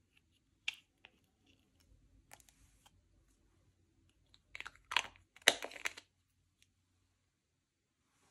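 Slime being handled and mixed: sticky clicks and wet crackles in short bursts, loudest in a cluster about five to six seconds in.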